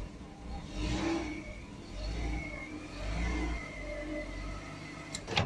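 Car engine running on its first start after a piston-ring replacement, revving up and settling back about three times, with a thin high whine from about two seconds in. A sharp knock comes near the end.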